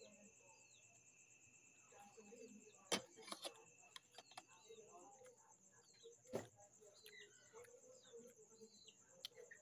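Faint night insects trilling steadily in a high, pulsing band. A second, lower steady tone stops about five seconds in, and short chirps sound over both. Two sharp clicks, about three and six seconds in, are the loudest sounds.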